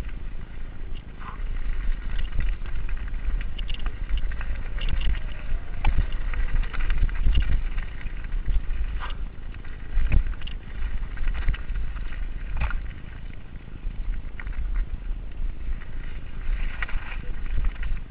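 Giant Reign mountain bike descending a rough dirt singletrack at speed: wind buffeting the GoPro microphone as a heavy low rumble, with tyre noise on dirt and irregular clattering knocks from the bike over bumps.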